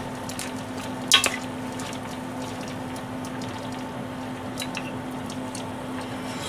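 Soup with napa cabbage simmering in a pan on a gas stove, a steady low bubbling over the burner's hiss and a steady hum. A spoon clicks against the pan once about a second in, with a few lighter taps later.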